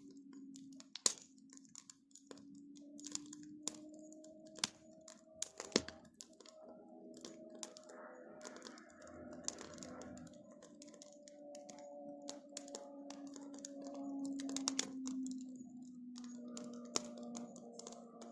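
Bonfire crackling, with irregular sharp pops and snaps from the burning wood, over a steady low hum.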